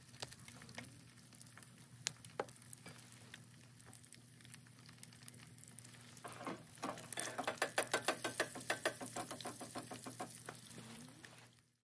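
Faint sizzling of food frying in a pan on a camp stove, with scattered utensil clicks. From about seven seconds in, a utensil clicks rapidly and evenly against a metal cup or pot for about three seconds, as in stirring or beating.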